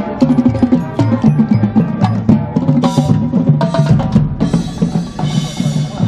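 Marching band playing a percussion-driven passage: rapid drum strikes over low sustained notes. A cymbal crash comes about three seconds in, and cymbals ring again from about four seconds in until near the end.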